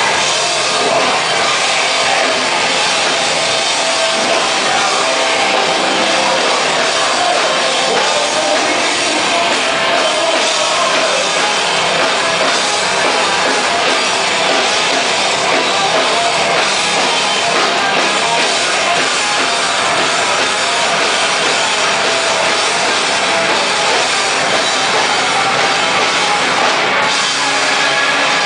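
Loud rock music with a drum kit, dense and steady throughout.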